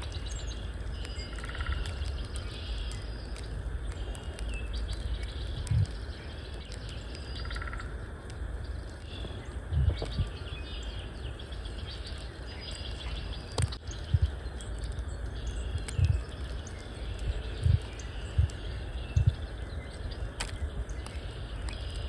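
A flock of small songbirds chirping and twittering on and off, over a steady low rumble, with several dull low thumps spread through.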